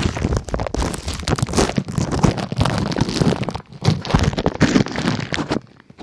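Plastic bag crinkling and rustling right against the phone's microphone as the phone is handled inside it: dense, irregular crackling that drops away sharply just before the end.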